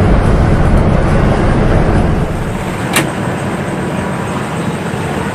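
Steady engine and road noise inside the cab of a moving Mercedes-Benz intercity bus, with a heavy low rumble. The noise drops in level about two seconds in, and one sharp click comes about three seconds in.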